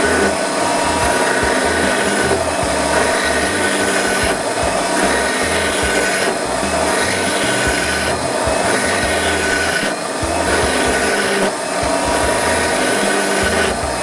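Background music with held notes and a changing bass line, over a hand tool scraping on wood in repeated strokes.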